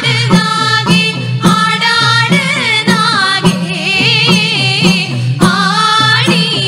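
A woman singing a pulluvan pattu, the Kerala serpent-worship folk song, in long wavering notes over a steady low drone and an even percussion beat.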